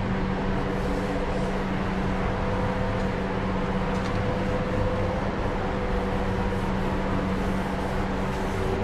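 Spray booth extraction fan running steadily: a constant hum with a few steady tones.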